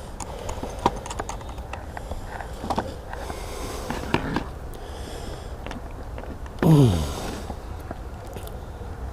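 Scattered clicks, knocks and rustles of radio gear being handled and set out. About two-thirds of the way through comes a short, louder sound that falls steeply in pitch.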